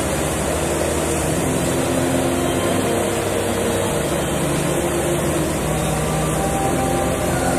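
Diesel engine of a JCB backhoe loader running steadily.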